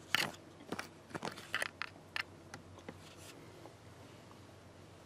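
Handling noise from a backup-alarm housing being turned over in the hands: a quick run of sharp clicks, taps and scrapes in the first two seconds or so, then only a few faint ones.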